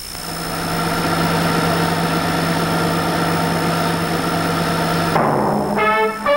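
A steady, engine-like drone with a low hum runs until about five seconds in, then falls away as plucked guitar notes of the title music begin near the end.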